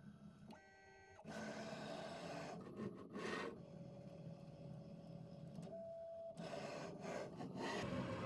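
Makera Carvera desktop CNC mill's motors running through a series of short moves during an automatic tool change. A brief steady whine comes about a second in, then a changing motor noise with a steady whine for a couple of seconds in the middle.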